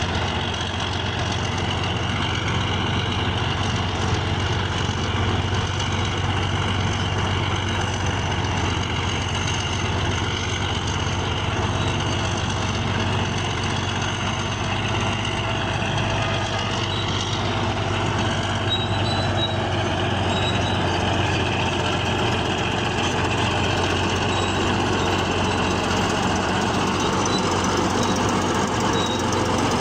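Bulldozer's diesel engine running steadily under load, with a dense metallic clatter from its tracks.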